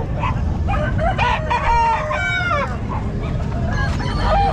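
A rooster crowing once, the call ending in a drawn-out falling note, with a second crow starting near the end.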